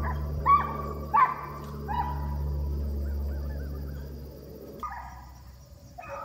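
Foxhounds of a hunting pack baying: about five separate calls, with a gap in the middle, over a low rumble that stops about five seconds in.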